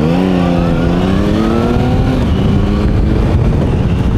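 Sports motorcycle engine accelerating, its pitch rising steadily over the first two seconds and then easing off, over a steady low wind rumble.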